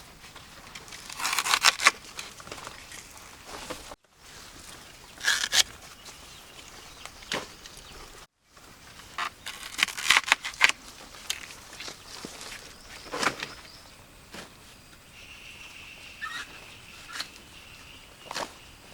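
Several short bursts of rustling and crackling, with a faint, steady high tone lasting about three seconds near the end.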